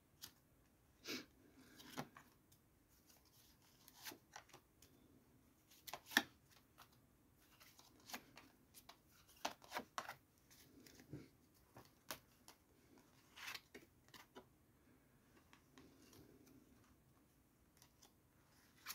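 Tarot cards being shuffled and dealt out onto a table: faint, irregular flicks and soft slaps of card on card, with a sharper snap about six seconds in.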